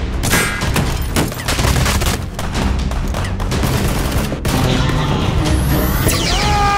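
Rapid volleys of gunfire sound effects over background music. Near the end a pitched electronic tone glides down and then holds.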